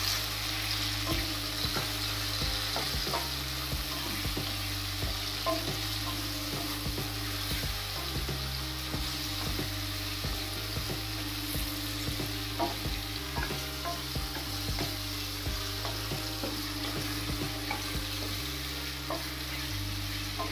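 Guava slices sizzling as they stir-fry in oil in a steel kadai over a high flame. A spatula scrapes and knocks against the pan again and again as it turns them.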